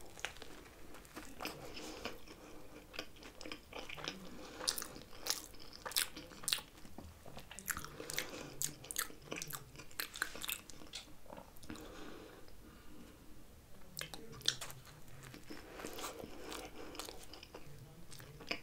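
Mouth sounds of a person biting into a hamburger and chewing it: irregular wet clicks and smacks, with a short lull in the chewing about two-thirds of the way through.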